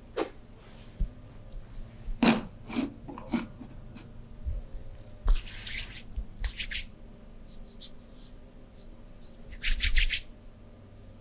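Hands working on skin during a massage: rubbing and brushing strokes with scattered slaps and taps, and a quick run of about five strokes near the end.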